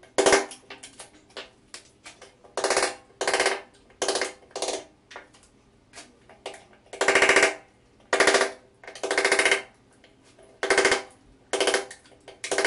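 Hammer and chisel breaking out a prefinished parquet plank: about a dozen short, harsh bursts of wood cracking and scraping at irregular intervals, with light taps between them.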